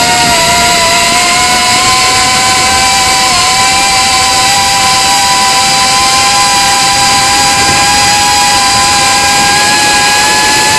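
Reptile Cloud 149 V2 FPV quadcopter's brushless motors running with a steady high whine at a nearly constant pitch, two close tones sounding together. The owner calls the motor sound strange.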